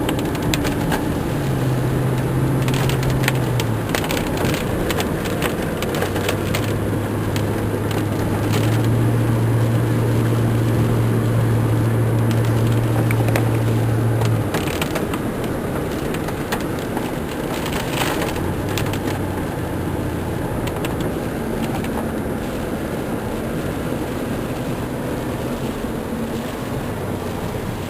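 Car engine and road noise heard inside the cabin while driving, the engine hum stepping up and down in pitch a few times, with scattered knocks and rattles.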